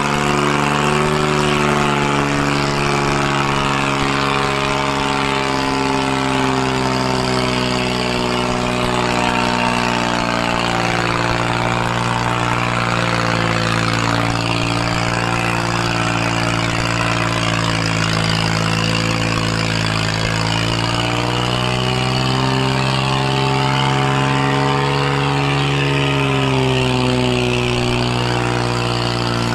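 New Holland 3630 tractor's three-cylinder diesel engine running hard under pulling load, a steady, unbroken drone. Its pitch sags a little about two-thirds of the way in, then climbs back near the end.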